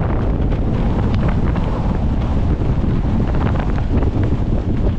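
Strong gusting storm wind buffeting the microphone in a loud, continuous rumble. Through it come many quick snaps of the collapsed Nortent Vern 2 tent's fabric flapping in the gusts.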